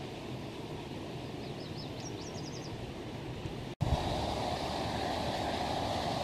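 Steady rushing of the fast-flowing Pend Oreille River, with a faint, high, twittering bird call about two seconds in. Just under four seconds in, the sound drops out for an instant at a cut, then the rushing resumes a little louder.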